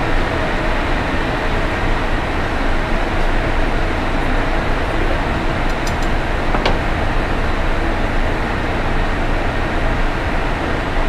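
Steady ventilation noise of a commercial kitchen's fans running, with one light click a little past halfway.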